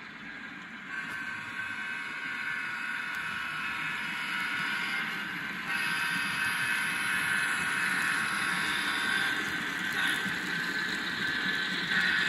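N scale model freight train with diesel locomotives running past on the track: a steady whine with a hiss of wheels on rail, growing louder as it approaches, rising sharply about six seconds in and loudest near the end.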